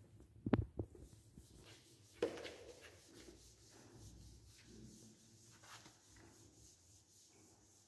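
Whiteboard duster rubbing across a whiteboard in strokes as writing is wiped off, after a few sharp knocks about half a second in.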